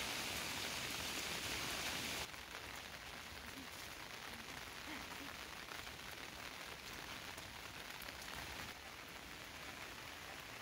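Steady rain falling, an even hiss that drops noticeably quieter about two seconds in.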